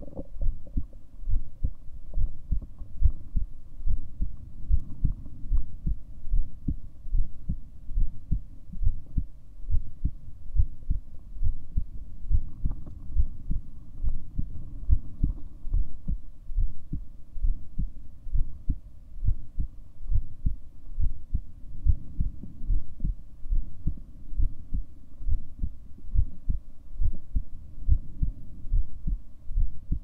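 Human heartbeat: a steady, regular run of low thumps.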